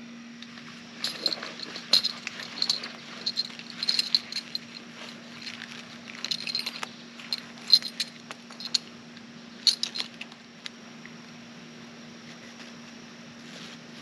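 DeWalt tool belt with suspenders being put on and fastened: its buckles, clips and metal hardware jangle and click in a busy run that dies away after about ten seconds. A faint steady hum runs underneath.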